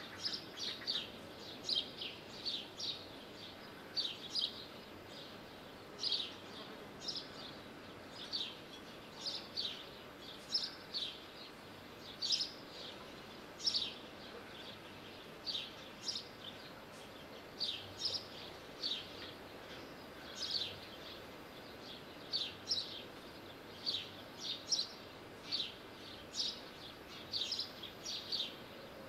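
Small bird chirping: short, high, downward-sliding chirps, one or two a second and often in pairs, over a faint steady hiss.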